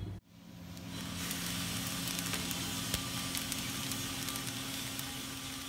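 Drum coffee roaster dropping freshly roasted beans into its cooling tray: a steady rushing rattle of beans with scattered clicks, over a steady low machine hum as the tray's stirring arms turn.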